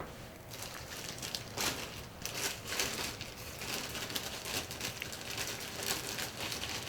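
Dense, crisp crinkling and crackling of bread being handled, starting about half a second in and continuing almost to the end.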